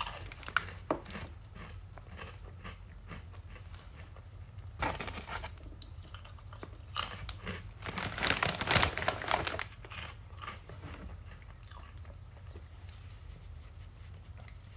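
A person chewing crunchy puffed cheese snacks close to the microphone, with bouts of crackly crunching, the busiest about five seconds in and again from about seven to nine and a half seconds.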